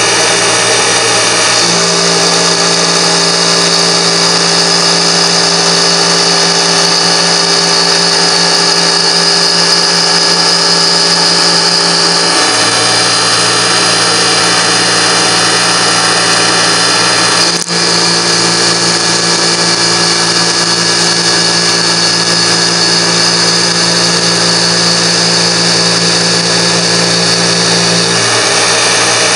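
Manual milling machine rough-milling aluminium with a 10 mm three-flute carbide end mill at about 3000 rpm: a loud, steady cutting hum with a high whine over it. Its note shifts a few times as the cut changes, with a brief dip about two-thirds of the way through.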